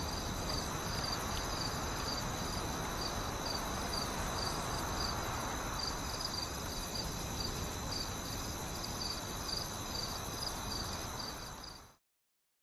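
Night-time crickets chirping in a regular pulse, about two chirps a second, over a steady high insect trill and a soft hiss. The sound fades out to silence just before the end.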